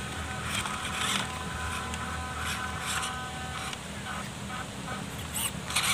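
Small RC crawler trucks' electric motors and gearboxes whining steadily as they crawl over rocky dirt, with a few sharp high-pitched sounds near the end.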